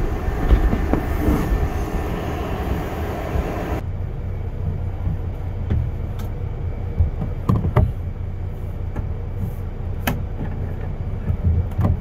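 Steady low rumble of the idling Prevost coach with its air conditioning running, with a high hiss that cuts off suddenly about four seconds in. Several sharp clicks and knocks from the plastic overhead vent panel being pried down, the sharpest about ten seconds in.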